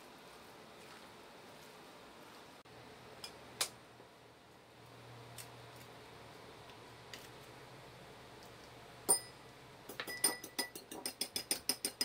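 A knife blade strikes an egg shell once with a sharp crack about nine seconds in, after a few light scattered clicks. Then a fork beats the egg in a small ceramic bowl: quick, even clinks against the bowl, about six a second, to the end.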